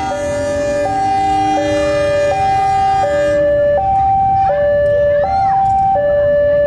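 Loud two-tone hi-lo siren, alternating between a higher and a lower note about every three quarters of a second. A second steady, buzzy tone sounds with it and stops about halfway through.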